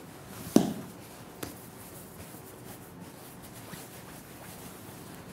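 Hands rounding pieces of bread dough into balls on a wooden bench: soft rubbing and squishing, with one sharp thump on the bench about half a second in and a smaller knock about a second later.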